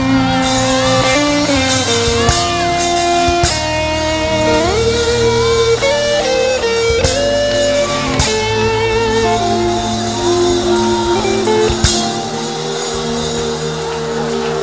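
Live praise band playing instrumental music, a guitar-led melody over drums and bass. The low end and drums drop back about twelve seconds in.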